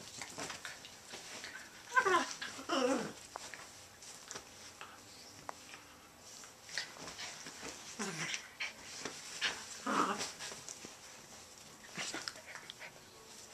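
Two small dogs play-wrestling, giving short sliding whines and grumbles several times, the loudest about two seconds in.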